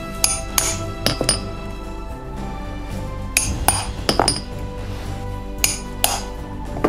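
Mallet striking a multi-pronged stitching chisel to punch stitch holes through leather handle tabs: about ten sharp, ringing taps in three quick clusters, over background music.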